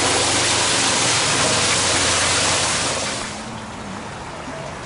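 Garden waterfall pouring into a rock grotto pool, a loud, steady splashing rush. About three seconds in it falls away sharply to a much quieter background.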